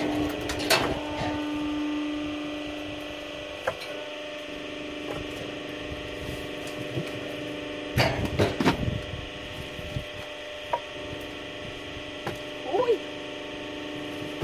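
Split firewood logs knocking against each other as they are set onto a woodpile: a few separate wooden clunks, the loudest about halfway through. A steady mechanical hum runs underneath.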